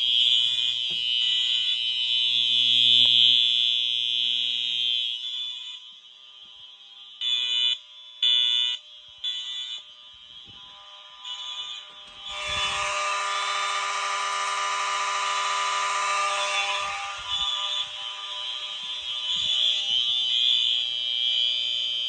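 Fire alarm horns (Wheelock and Faraday horns) sounding continuously during a system alarm. For the first few seconds the alarm is loud and steady. It then drops away for several seconds, broken by a few short loud bursts, and about halfway through comes back terribly loud and stays that way.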